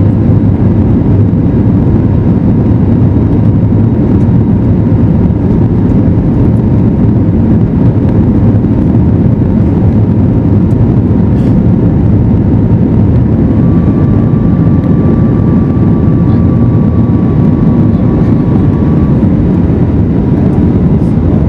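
Airbus A320neo cabin noise: the steady, loud rush of engines and airflow heard from inside the cabin, with faint steady whines on top and a slightly higher whine joining for a few seconds past the middle.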